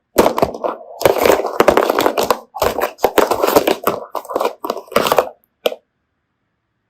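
Hands squeezing and poking slime, giving dense runs of crackling and popping clicks that cut off about a second before the end.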